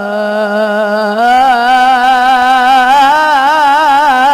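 A child's solo voice chanting an Islamic supplication, holding one long vowel with quick ornamental turns and stepping up in pitch about a second in.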